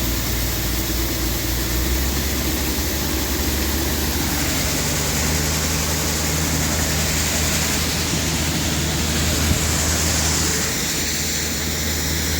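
Combine harvester running steadily under load with a constant engine drone, its pitch stepping slightly about two seconds in; a single short knock comes near the end.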